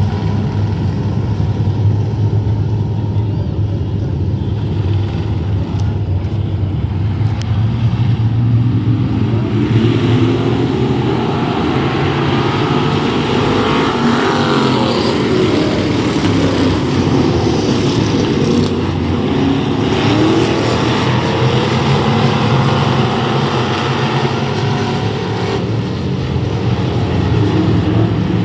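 Several race car engines running at speed: a steady engine drone, with a pack of cars passing through the middle, their engine notes rising and falling over one another.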